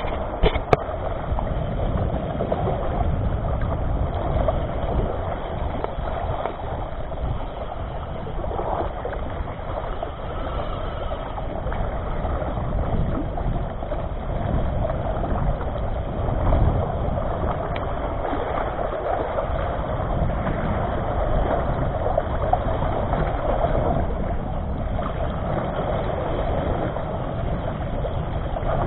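Steady wind rumble on the microphone mixed with small sea waves washing against breakwater rocks, with a single sharp click about a second in.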